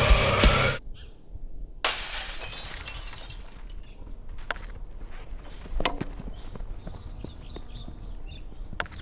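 Heavy metal music cuts off abruptly, and about a second later a car windshield breaks with a sudden crash of shattering glass that fades away over a second or so. A few sharp knocks follow, the loudest about six seconds in, with faint birdsong in the background.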